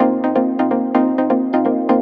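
Electronic background music with a fast, even pulse of notes.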